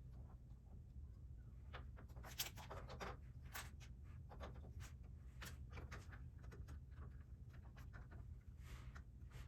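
Plastic Lego pieces being handled and pressed together: a faint string of irregular light clicks and rustles, with one sharper click about two and a half seconds in, over a low steady hum.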